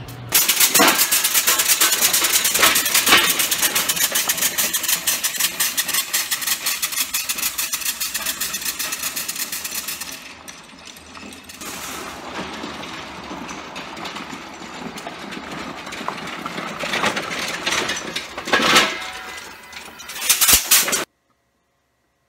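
Compressed-air engine on a homemade test vehicle running under air: a rapid, even train of exhaust pulses starting suddenly just after the start, quieter and more ragged from about ten seconds in. Two brief louder noises come near the end before the sound cuts off.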